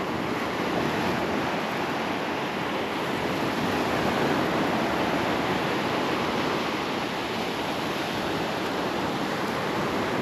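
Steady rush of surf breaking on the beach, with wind buffeting the microphone.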